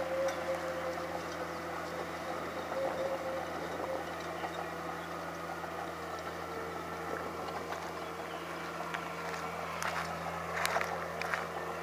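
Heavy bulldozer's diesel engine running steadily at work, with a few sharp knocks near the end.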